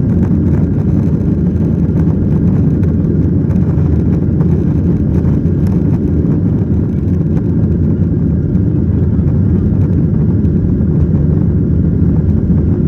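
Steady low rumble inside the cabin of a Boeing 737-900ER: its CFM56-7B engines and the rush of air around the fuselage, holding an even level with no change in pitch.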